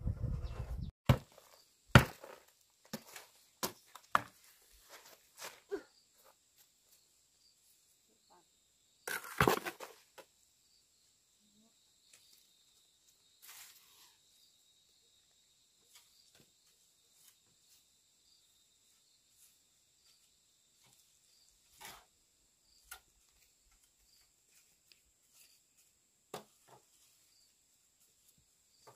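Scattered knocks, taps and scrapes of hand work, busiest in the first few seconds, with a longer scraping rustle about nine seconds in and a few single knocks later. A faint, steady high-pitched whine runs underneath.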